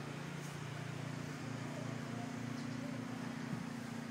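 Steady low drone of an engine running at an even speed.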